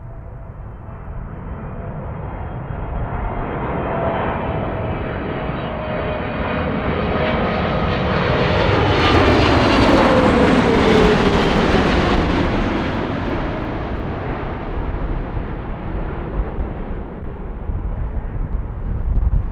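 Jet airliner passing close by. Its engine noise builds to a peak about halfway through, with the engine whine falling in pitch as it goes past, then fades away.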